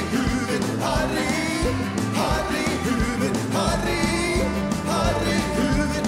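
Live rock band playing: a male lead vocal over electric guitar, bass guitar and drums, with a steady beat.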